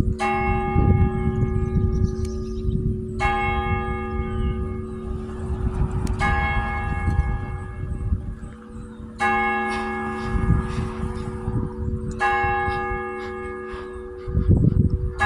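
Church clock bell striking the hour for 8 o'clock: five slow, evenly spaced strokes about three seconds apart, each ringing on and fading until the next.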